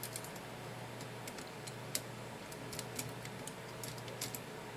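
Faint, irregular light clicks and taps of small metal clock-movement parts being handled and fitted together by hand, over a low steady hum.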